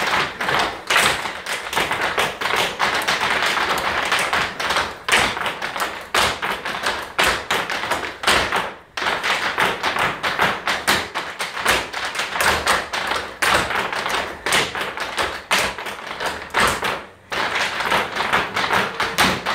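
Irish step dancers' hard shoes striking a wooden floor in a rapid, dense tapping rhythm, many feet together, with two brief breaks, one midway and one near the end.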